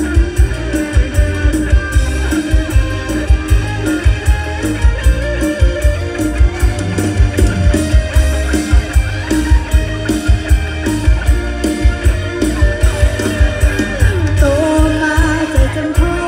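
Live mor lam band music: a woman singing over a steady, heavy drum beat.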